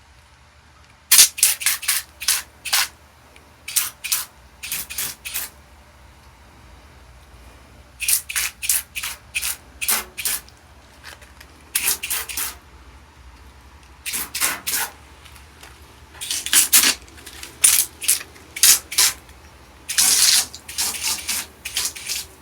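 Foam engine degreaser being sprayed in many short hissing bursts, in clusters of several at a time.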